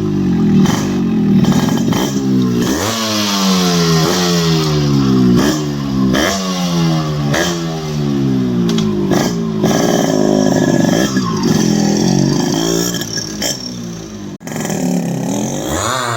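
Yamaha RX 135 two-stroke single-cylinder motorcycle engine running loud and being revved over and over, its pitch jumping up and falling back about once a second.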